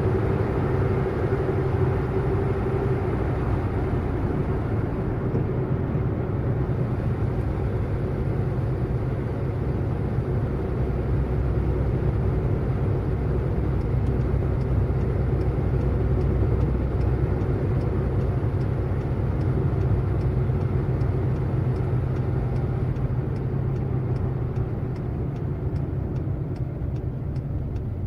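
Car driving at speed: steady engine and road noise, with a faint tone fading out in the first few seconds and a faint regular ticking, about two to three ticks a second, coming in about halfway through.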